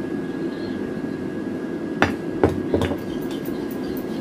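A spoon knocks sharply against a ceramic bowl three times over about a second, then clicks lightly and quickly as a butter, garlic and oil paste is mixed. Under it runs the steady whir of an air fryer's fan.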